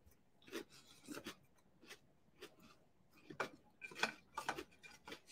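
Faint, scattered clicks and scrapes of cereal being eaten from a bowl with a spoon, a dozen or so small sounds, more of them in the second half.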